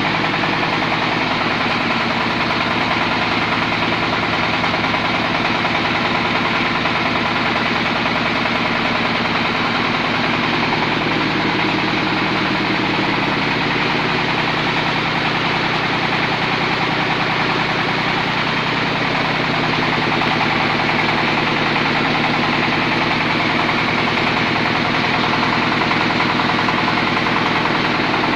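Size-70 meatball grinding machine running steadily: a continuous motor-driven drone with rapid, even chatter, its pitch shifting slightly about ten seconds in.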